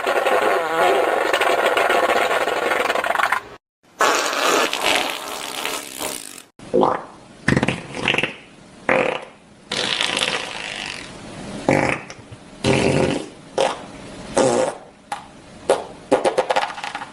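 Played-back fart sound effect. It opens with a dense, rasping noise that breaks off briefly about three and a half seconds in. About six and a half seconds in it turns into a run of about a dozen short, separate farts.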